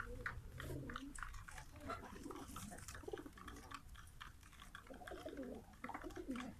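Domestic pigeons pecking seeds off concrete, a continual patter of small sharp clicks, while some of them coo low several times, the longest coo near the end.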